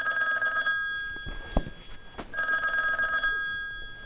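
Bell of an old black desk telephone ringing twice, each ring under a second long, with the bells sounding on after it. A single knock comes between the two rings.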